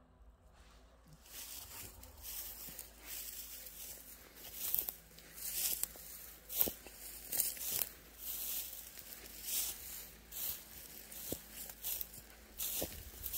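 Footsteps crunching and rustling through dry, frosted grass, about one or two steps a second, starting about a second in and growing louder about four seconds in.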